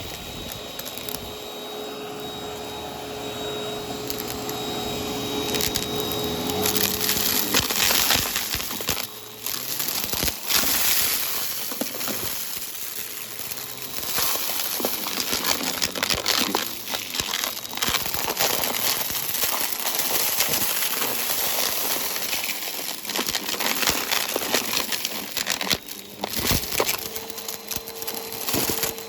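Vacuum cleaner with its brushroll running through crunchy debris: a dense crackling as the bits are crushed and sucked up. The motor's steady whine is clearest in the first seven seconds and comes back near the end.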